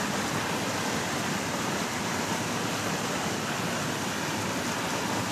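Shallow river rapid: water rushing steadily over rocks, an even, unbroken hiss.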